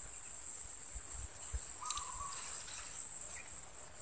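Steady high-pitched insect chorus, with a short call sounding about two seconds in and a few dull low bumps about a second in.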